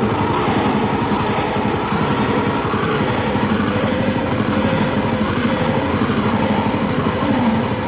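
Harsh noise / cybergrind electronic music: a dense, loud wall of distorted static with very fast, machine-like pulsing and a few sliding tones near the end.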